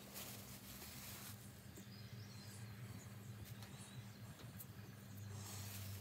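Faint rustling of a plastic bag and moss clumps being handled, strongest about the first second and again near the end, over a steady low hum.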